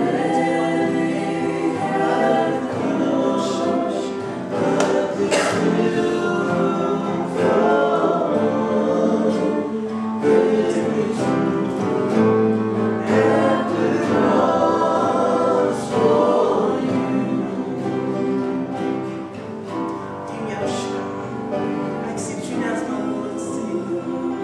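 Gospel music with a choir singing.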